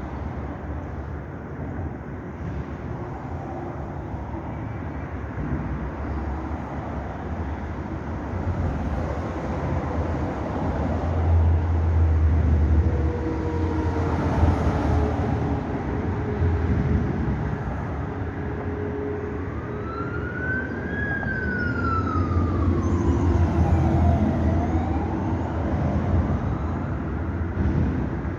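Steady traffic rumble with a siren wailing over it, one long rise and fall in pitch in the last third.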